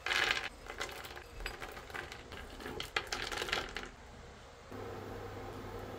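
Whole almonds tipped from a small steel cup onto a wooden board, a loud clatter at the start followed by scattered light clicks of nuts landing. A steady low hum comes in near the end.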